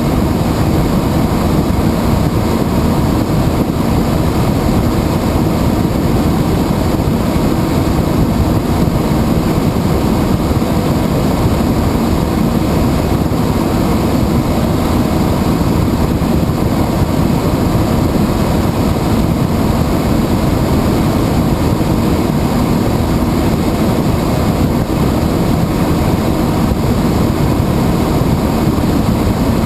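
Helicopter cabin noise in flight: the rotor and engine make a loud, steady drone that never lets up.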